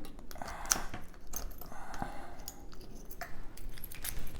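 Small metal clicks and clinks of locks and tools being handled and set down on a workbench, a few scattered knocks rather than any steady sound.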